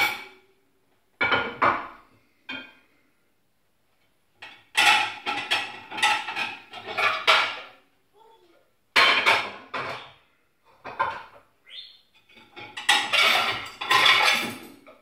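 China plates and cutlery clinking and clattering as a dishwasher is unloaded, in four bursts of clatter with short silences between.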